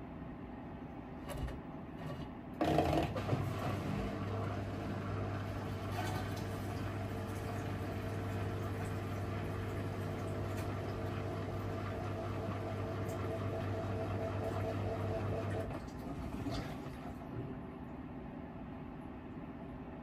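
Miele W5877 washing machine running. After a couple of clicks, a steady motor hum starts suddenly a few seconds in and stops about thirteen seconds later.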